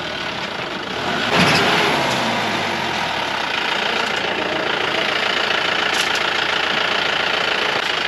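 Mahindra Bolero pickup's diesel engine running under load as the truck climbs a steep gravel slope, with a louder surge about a second and a half in.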